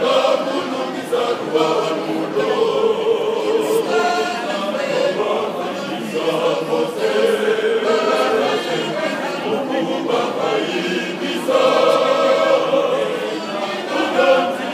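Men's choir singing.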